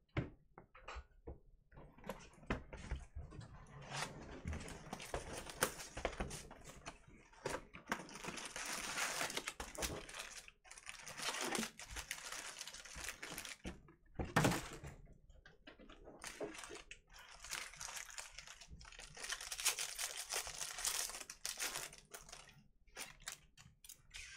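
Cardboard box flaps and foil trading-card pack wrappers being handled: scattered clicks and rustles, with long spells of crinkling as foil packs are gripped and torn open, and one sharp, louder crackle or tear about halfway through.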